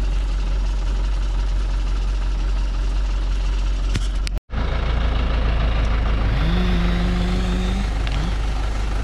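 Loaded logging truck's engine running under load as it creeps through deep mud, a steady low rumble. Just before halfway the sound cuts out for a moment. About two-thirds in, a note rises and holds for about a second.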